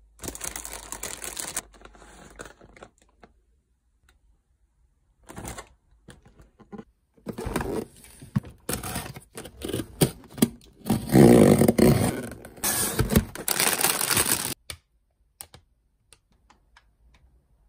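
Plastic grocery packaging and cardboard boxes being handled and unpacked, crinkling and rustling in irregular bursts. The handling comes in a short spell at the start and a longer, busier spell from about seven seconds in, loudest in the middle.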